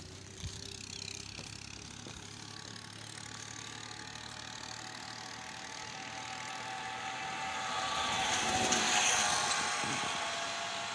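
Engine noise of a passing motor vehicle, growing louder to a peak near the end and then starting to fade.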